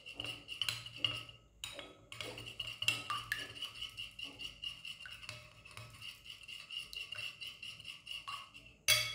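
A metal spoon beating thick yogurt in a ceramic bowl: quick, regular clinking and scraping against the bowl, several strokes a second, pausing briefly about a second and a half in. A louder sharp clack comes near the end.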